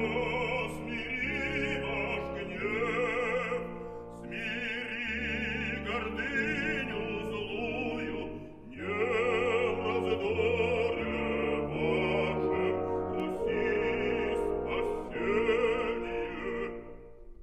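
Female mezzo-soprano opera singing with wide vibrato over orchestral accompaniment, in several long phrases. It cuts off abruptly near the end.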